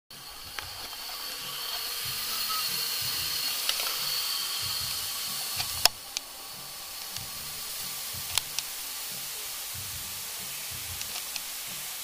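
Steady hiss with a faint high whistle, louder in the first half and dropping to a lower, even hiss just after a sharp click about six seconds in; a few fainter clicks are scattered through it.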